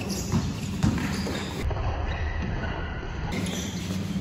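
Basketball game noise in a gym: two thuds about half a second and a second in, over the steady din of the hall.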